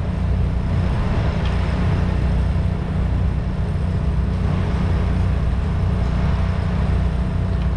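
A heavy machine's engine running with a steady low rumble, without distinct knocks or clanks.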